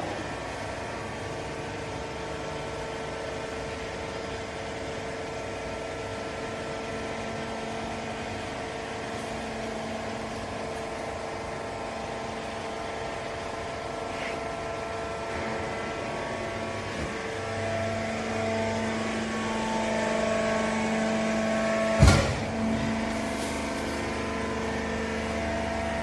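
Vertical hydraulic baler's electric motor and hydraulic pump running with a steady hum and whine as the ram presses waste cotton down, growing louder toward the end as the load builds. One sharp loud clank comes about four seconds before the end.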